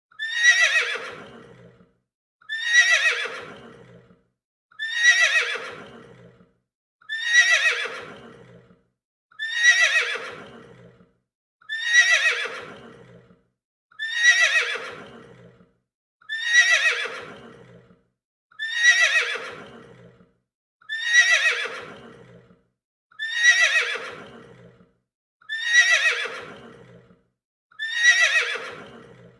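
A horse neighing: the same whinny repeats about every two seconds, some fourteen times. Each call starts high, slides down in pitch and trails off over about a second and a half.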